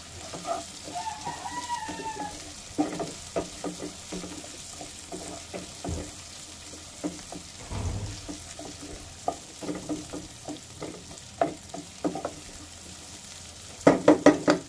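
Ginger, garlic and shallots sizzling in hot oil while a wooden spatula scrapes and knocks against a nonstick pot, stirring them. Near the end comes a quick run of louder knocks.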